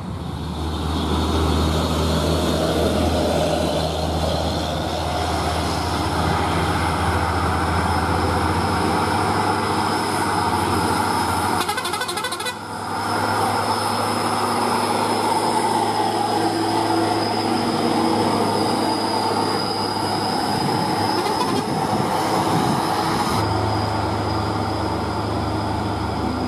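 Heavily loaded UD Quester diesel trucks climbing a steep grade in a low gear, their engines howling steadily under heavy load, with a brief lull about halfway.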